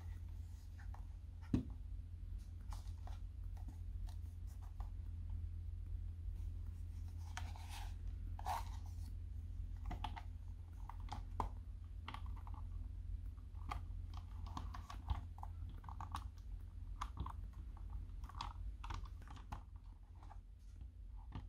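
Plastic shell of a PS4 DualShock 4 controller being handled: scattered clicks, taps and short scrapes of plastic, with one sharp click about a second and a half in and busier clicking in the second half, over a faint low hum.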